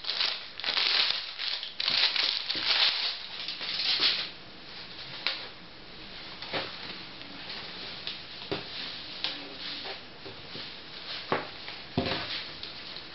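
Clear plastic packaging bag crinkling and rustling as a folded blouse is slid out of it, dense for about the first four seconds. After that, quieter fabric rustling with scattered light taps as the blouse is unfolded on a wooden table.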